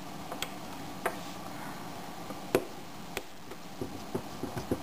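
Small Phillips screwdriver working the tiny screws of an MP3 player's daughter board: scattered sharp clicks of the metal tip on the screw heads, the loudest about two and a half seconds in, then near the end a quick run of small ticks, about four a second, as a screw is turned. A steady hiss runs underneath.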